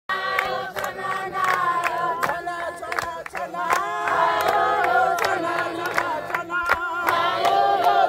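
A group of people singing together in the open air, clapping their hands in a steady rhythm.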